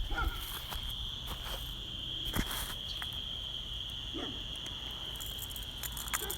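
Crickets chirring in one steady, high-pitched drone, with scattered light clicks and rustles of a caught fish being handled.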